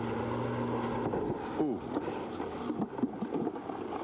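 Car engine on an ice test track with a steady hum that stops about a second in, followed by a scatter of short sliding, rising-and-falling sounds as the car, on winter tires at 50 km/h, swerves and loses grip.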